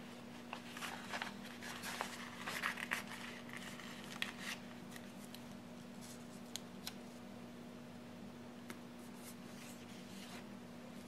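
Soft paper rustling and small clicks as a sticker is peeled from a paper sticker sheet and pressed onto a planner page, busiest in the first half and sparse afterwards.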